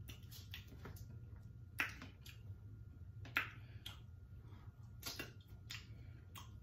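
Close-up mukbang eating sounds from chewing and handling a turkey leg: scattered wet clicks and smacks, with two louder smacks about two and three and a half seconds in, over a low steady hum.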